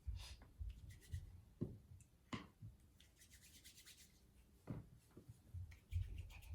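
Faint rubbing and soft knocks of hands rolling and pressing Play-Doh on a tabletop.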